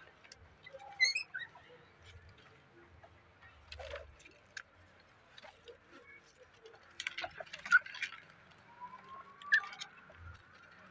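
Scattered short, high squeaks and chirps from small animals, one rising chirp about a second in and a longer rising squeak near the end, over rustling and light clicking that is loudest a little past the middle.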